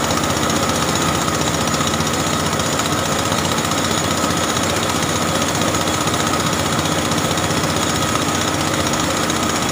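Mobile rice-milling machine running steadily: a dense, rapid mechanical clatter with a steady whine above it.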